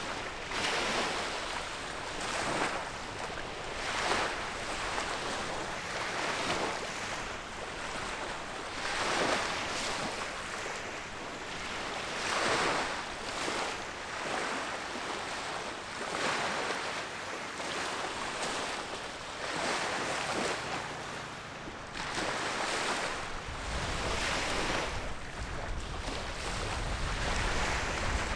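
Small waves washing against the riverbank, swelling and falling back every second or two. Wind rumbles on the microphone for the last few seconds.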